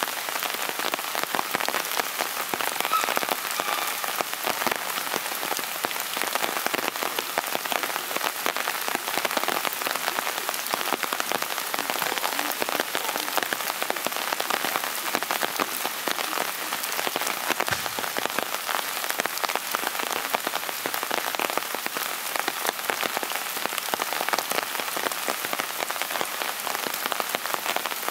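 Steady rain falling: a dense, continuous spatter of countless small drop impacts.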